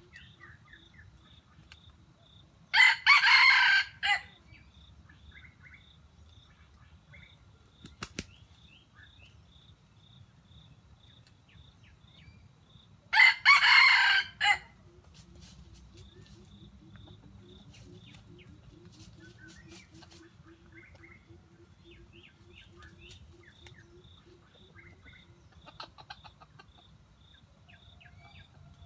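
Junglefowl rooster crowing twice, about ten seconds apart, each crow short and loud, about a second and a half long.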